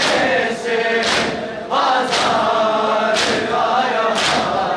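Crowd of men chanting a noha together while beating their chests in matam, a sharp collective slap of hands on chests about once a second over the chanting.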